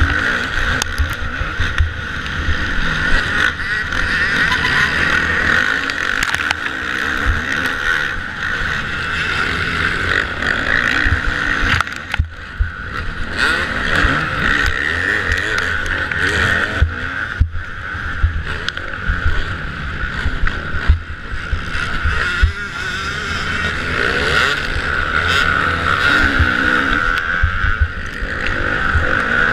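Kawasaki motocross bike's engine heard on board, run hard at high revs as it races through the pack, with the throttle briefly closed about twelve and seventeen seconds in. Low knocks and rumble from the rough track and wind on the microphone lie underneath.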